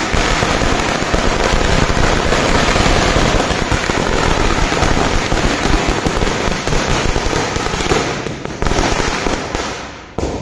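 A long string of firecrackers (a ladi) going off in a rapid, unbroken chain of bangs, easing briefly near the end and then dying away.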